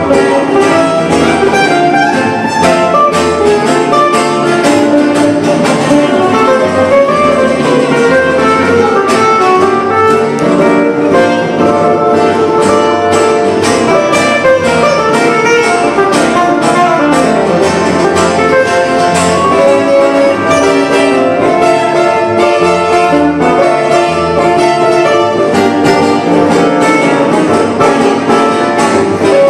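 Live Romani-style music from an acoustic trio: two acoustic guitars and a plucked double bass playing steadily.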